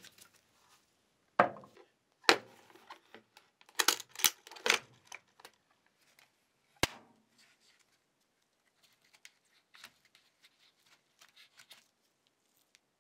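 Irregular knocks and clicks of hand work on hard parts. There are two strong knocks, a quick cluster of clatter a few seconds in, and a single sharp click. Faint light ticking follows near the end.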